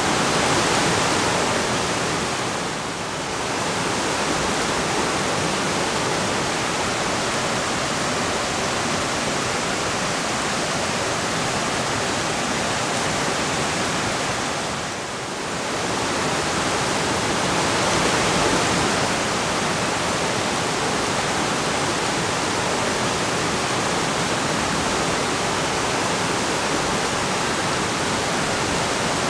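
Steady rush of flowing river water and falling rain: an even hiss with no separate drops or strokes, dipping briefly about 3 and 15 seconds in.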